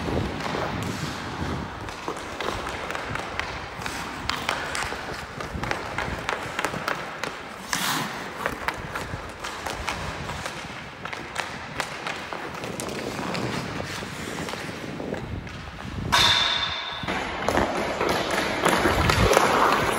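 Ice hockey drill on the rink: skate blades carving and scraping on the ice, with many quick clicks and knocks of the stick on the puck. Near the end the sound jumps louder into a rushing noise.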